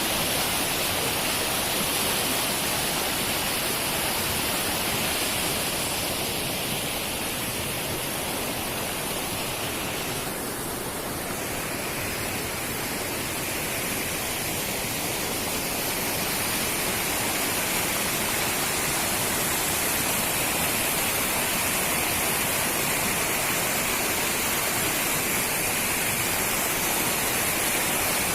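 Waterfall: a steady rush of falling water, dipping slightly in level about halfway through.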